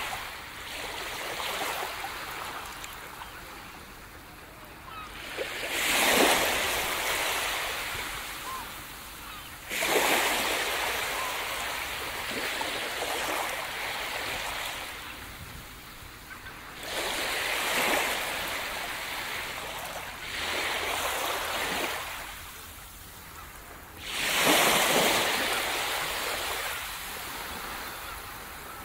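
Small ocean waves breaking and washing up onto a sandy beach. Each surge starts suddenly and fades out, about five times, a few seconds apart.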